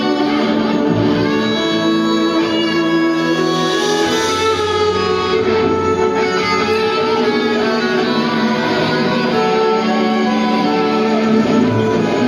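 Live medieval folk-metal band playing at full volume: electric guitars, drums and a violin carrying a melody over sustained chords.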